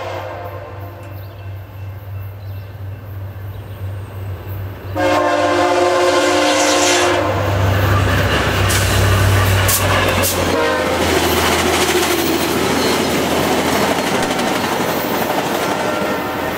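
VIA Rail passenger train led by an F40 diesel locomotive sounding its air horn, fading over the first few seconds, then a second loud horn blast about 5 seconds in lasting about two seconds. The train then passes close by at about 69 mph with a loud, steady rushing roar of wheels on rail and scattered clicks over the rail joints.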